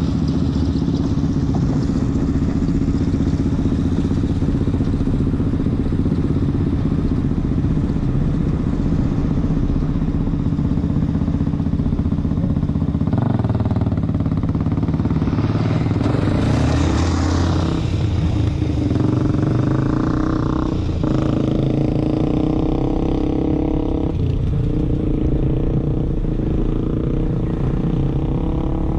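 Toyota Tacoma pickup driving over a gravel trail, heard from a camera on its hood: a steady engine drone with tyre and gravel noise, the engine note shifting several times in the second half.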